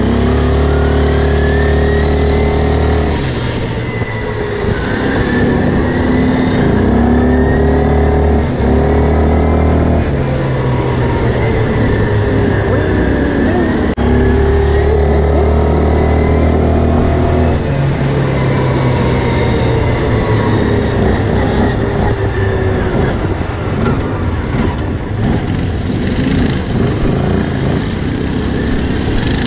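Quad bike engine running under the rider, its pitch holding steady for a few seconds at a time and rising and falling with the throttle in between.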